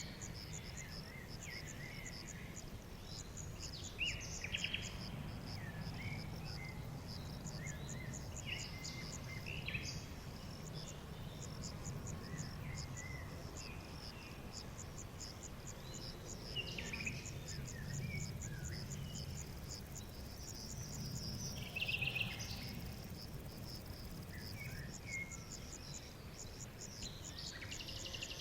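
Insects chirping in rapid, evenly repeated pulses, with scattered short higher calls and a low steady rumble underneath.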